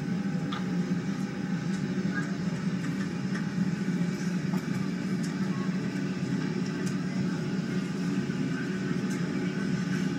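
Recorded jet airliner cabin noise played back through a speaker: a steady low drone.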